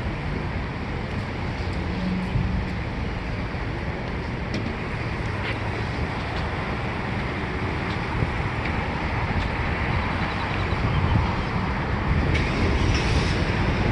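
Steady traffic and road noise with wind rushing across the microphone, and a few faint clicks.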